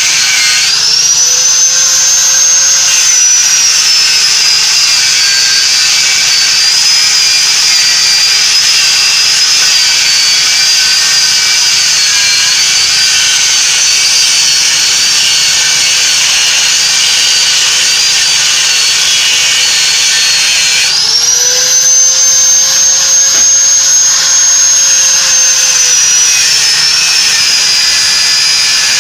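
High-speed electric grinder running on steel, a loud whine over a hiss. The pitch climbs as it spins up about half a second in, then sits lower and wavers under load. It climbs again about 21 seconds in and drops back near the end.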